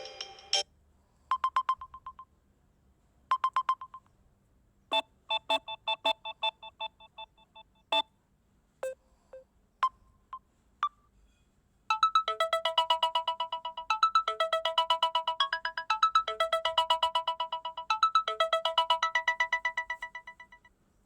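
Samsung Galaxy A12 ringtones playing in turn: first a few short electronic beeps and chime figures with pauses between them, then from about twelve seconds in a fast, steadily repeating melody.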